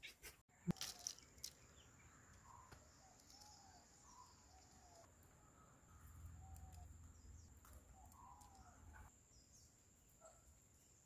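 Faint outdoor ambience: distant birds giving short chirps again and again, with a few sharp clicks about a second in.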